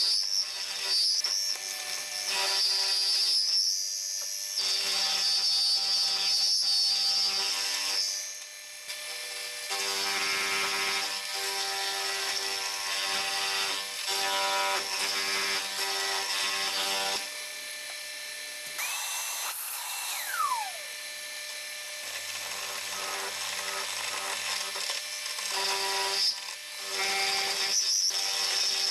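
End mill cutting metal on a manual milling machine during a roughing pass, the spindle running steadily. A high whine from the cut comes and goes, and a short whistling tone slides down about two-thirds of the way through.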